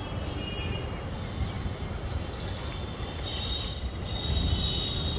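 Train crossing a bridge: a steady low rumble with faint high squealing tones from the wheels.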